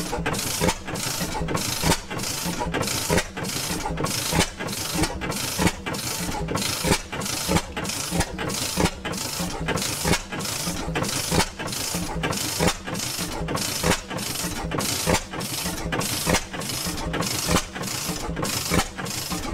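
Circa 1926 Reid Type A two-stroke gas engine with hot-tube ignition running steadily, a regular beat just under twice a second with a louder firing stroke about every two seconds. It is firing a little harder than the owner wants.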